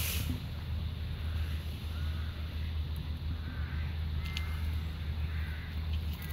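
Faint short bird calls, repeated about every second, over a steady low rumble.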